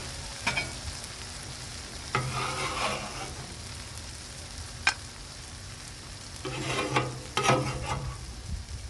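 Omelette and cheesesteak meat sizzling on a Blackstone flat-top griddle, with metal spatula scrapes against the steel top about two seconds in and again near the end, and one sharp clack near the middle.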